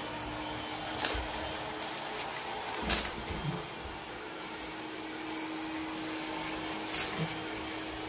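ILIFE A4s Pro robot vacuum running: a steady motor and suction hum with a faint even tone, broken by a few short knocks and clicks, the loudest about three seconds in.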